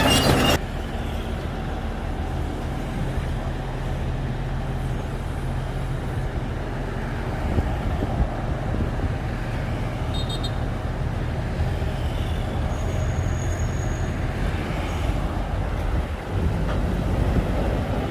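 Shantui bulldozer's diesel engine running steadily, a low, even drone, with a brief change in its sound about two seconds before the end.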